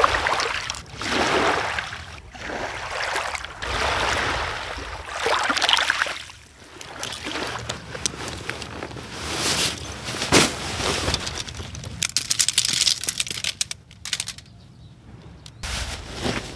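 Small waves washing in and drawing back over a pebble beach, swelling every couple of seconds. After about six seconds this gives way to the rustling of nylon and the clicks and knocks of a backpack being unpacked and camping gear handled, with a brief rasping run about two-thirds of the way through.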